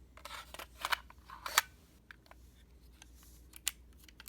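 A few sharp clicks and clacks from handling an HK USP CO2 airsoft pistol, with the strongest about one and a half seconds in.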